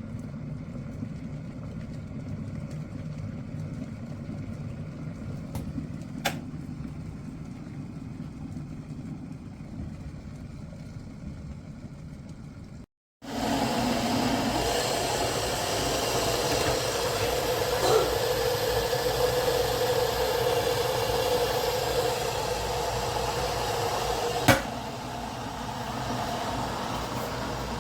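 Electric kettle heating water: a steady low rumble, then, after a cut about halfway through, a louder, brighter rush with a steady hum. A few sharp clicks are scattered through it.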